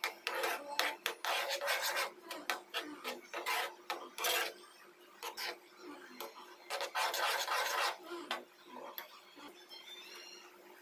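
A ladle scraping and stirring through a thick mixture in a nonstick pan, in irregular strokes that die away near the end.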